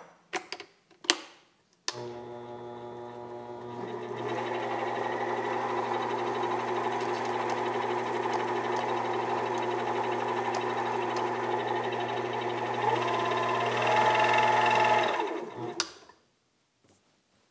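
Variable-speed mini lathe started about two seconds in after a few clicks: its motor and gear train run with a steady whine that grows louder after a couple of seconds and again near the end, then cuts off.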